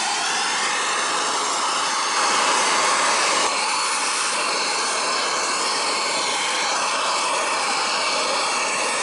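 Bernzomatic hand torch burning with a steady, loud hiss of the flame, a little louder from about two to three and a half seconds in. The flame is heating a rusted, seized set screw in the crankshaft pulley hub to free it.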